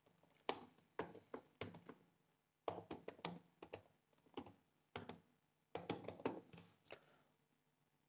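Typing on a computer keyboard: quiet key clicks in short runs, with brief pauses between words.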